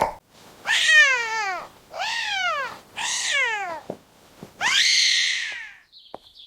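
Domestic cat meowing four times, each call rising briefly and then sliding down in pitch; the fourth call is the longest.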